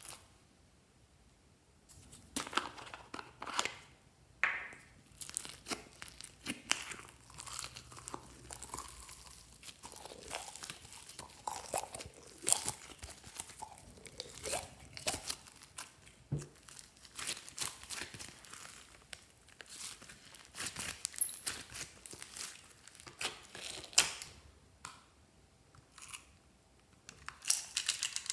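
Pink fluffy slime with small foam beads being stretched, squeezed and pulled apart by hand, giving a dense run of sticky crackles, pops and tearing sounds that start about two seconds in.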